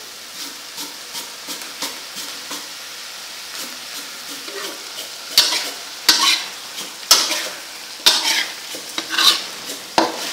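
Chopped frog meat stir-frying in a wok, sizzling steadily, while a metal spoon scrapes and knocks against the pan. The stirring strokes grow louder from about halfway through, coming roughly once a second.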